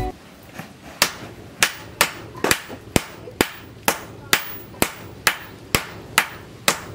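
Sledgehammer and hand hammer striking a glowing steel bar on an anvil in turn, a sharp metallic blow about twice a second, from about a second in. The hot steel is being hand-forged into a cleaver.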